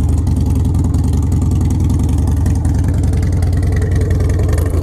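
Harley-Davidson Dyna's air-cooled V-twin idling steadily through an aftermarket exhaust, with a deep, even run of firing pulses.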